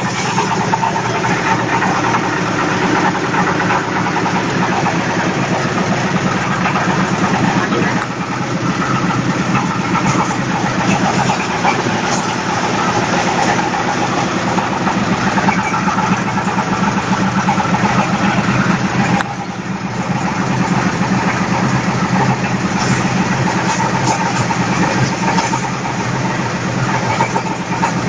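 Diesel-driven stainless-steel disk mill (grain grinder) running steadily under its 10 hp diesel engine, a loud continuous fast-firing engine sound mixed with the mill's whir. The level dips briefly twice, about 8 and 19 seconds in.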